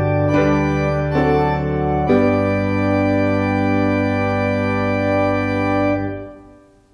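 Organ playing closing chords in sustained, unbroken tones, changing chord a few times, then holding a final chord that is released about six seconds in.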